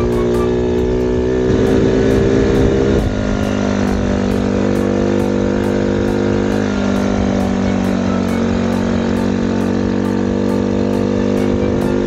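Suzuki Birdie 50 moped's small single-cylinder engine running hard in third gear up a hill, its note held steady but not climbing: the engine is labouring and the bike is not gaining speed. Background music sits underneath.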